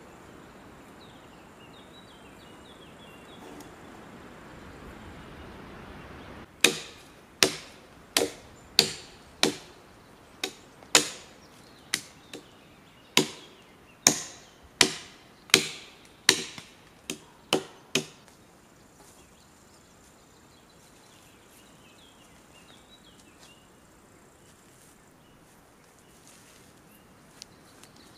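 Axe chopping into a log with about seventeen sharp strikes, roughly one and a half a second at an uneven pace. The chopping starts about six seconds in and stops about twelve seconds later, with faint insect or bird chirps before and after.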